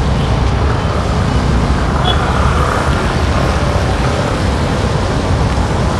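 Road traffic on a rain-wet street, with cars and motorcycles passing close by, heard from a moving bicycle as a steady, heavy low rumble.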